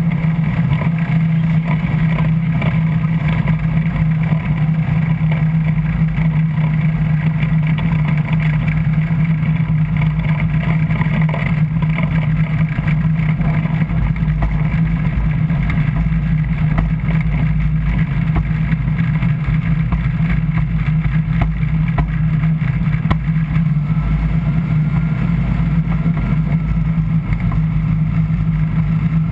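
A light aircraft's piston engine and propeller running steadily at a constant pitch, heard from inside the cockpit.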